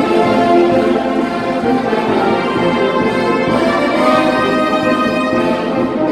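Brass band playing marinera music, trumpets and trombones to the fore.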